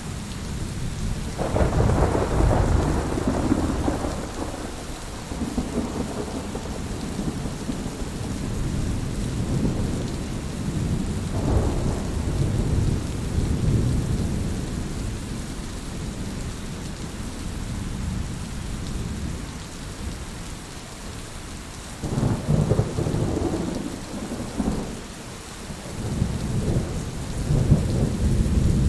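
Steady rain falling, with rolling thunder that swells and rumbles several times: near the start, around the middle, and twice near the end.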